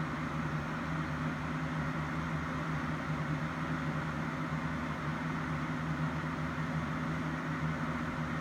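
Steady mechanical hum, a low two-tone drone under an even hiss, with no change and no distinct events.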